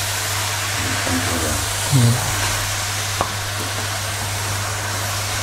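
Sausage pieces and onions sizzling in a stainless steel pot as they are stirred with a spoon, over a steady low hum, with a single sharp click about three seconds in.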